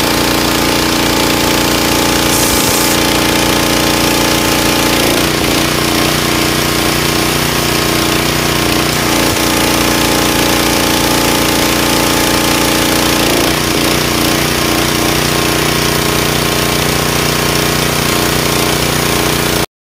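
Pressure washer running: a Honda GX270 single-cylinder engine driving a General Pump triplex pump, with water spraying from the wand. The running note shifts twice, about five seconds in and again about thirteen seconds in, and the sound cuts off suddenly near the end.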